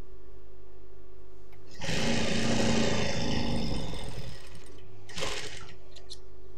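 Industrial straight-stitch sewing machine running a seam through the fabric for about two and a half seconds, starting about two seconds in. A second short burst follows about five seconds in, over a low steady hum.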